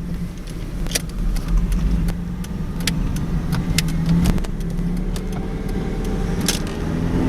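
2001 Ford Mustang's 3.8-litre V6 pulling in first gear, heard from inside the cabin. It runs smoothly with no misfire or shaking in this gear, and its note rises toward the end. Light clicks and rattles come from the cabin.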